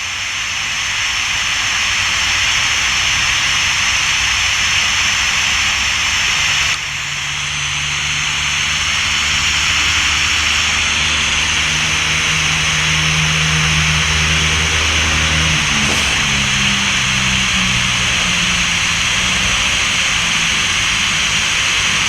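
Steady white-noise hiss played from a phone app for spirit-voice (EVP) listening. About a third of the way in a low droning hum joins underneath, stepping in pitch, and breaks off about two-thirds through.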